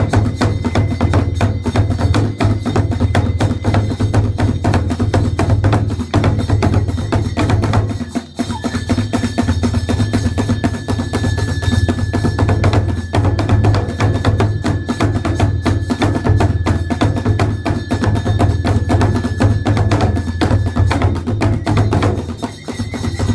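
Kagura festival music: fast, continuous drumming on a large barrel taiko drum with other percussion, and one long high note held for about twelve seconds in the middle.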